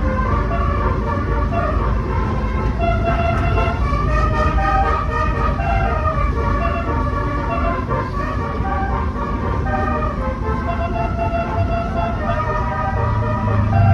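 Bus telolet horn (Basuri type) playing its multi-tone melody over and over, several notes sounding together and changing every fraction of a second, over a steady low rumble, heard from inside the bus's luggage hold.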